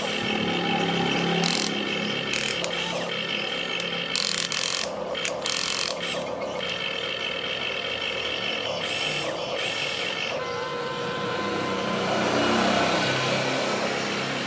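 Remote-control toy excavator's small electric motors and gearboxes whining as the boom, arm and bucket move, with several short rattling bursts as the bucket works the sand.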